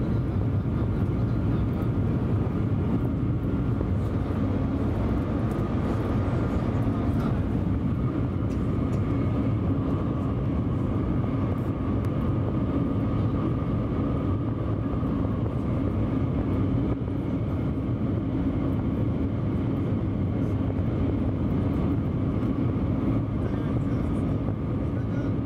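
Shanghai Transrapid maglev train heard from inside the passenger cabin while moving: a steady, mostly low rumble with a faint steady whine above it.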